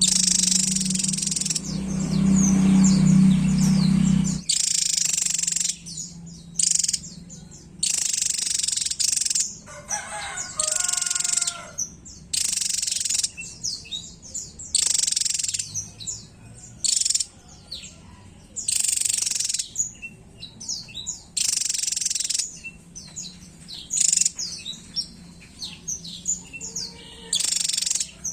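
Javan tesia singing: bursts of rapid, high-pitched song about a second long every couple of seconds, with short high chirps in between. A low hum runs under the first four seconds.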